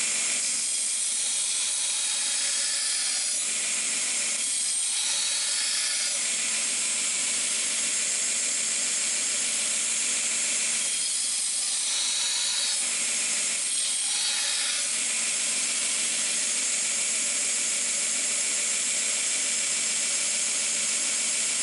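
Belt grinder running a 120-grit belt while a steel chef's knife blade, made from old scythe steel, is ground against it. The grinding noise is steady and high-pitched, and its tone shifts several times as the blade is pressed and moved across the belt.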